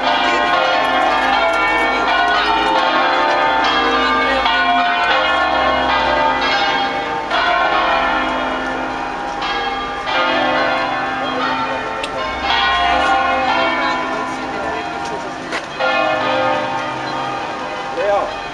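Tuned church bells rung in the Veronese system, a solemn concerto: several bells strike one after another in melodic sequence, their tones overlapping and ringing on without a break.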